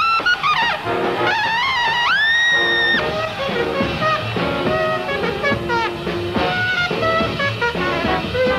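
Big-band jazz with a lead trumpet playing bent, smeared notes; about two seconds in it scoops up into a high note and holds it for about a second, over the band's accompaniment.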